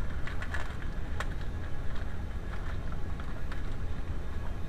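A few light clicks and knocks of tools being handled, over a steady low rumble.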